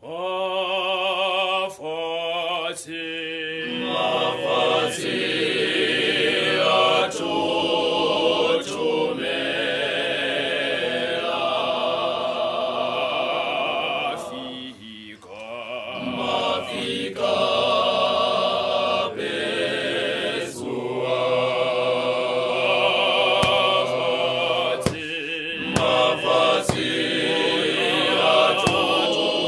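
Male voice choir singing, the voices dipping briefly about halfway through before coming back in full.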